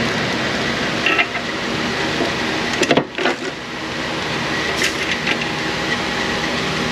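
Steady hum of shop background noise, with a few brief metallic clicks of hand tools on the car about one, three and five seconds in.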